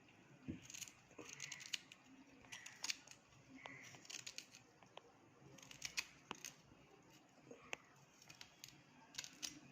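Faint, scattered light clicks and taps from small pieces of ginger being handled for a ground spice paste.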